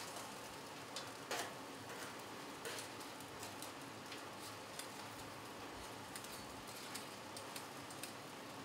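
Metal tongs clicking and tapping on a griddle top under a foil tent: a few scattered sharp ticks, one louder click about a second and a half in, over a steady faint hiss.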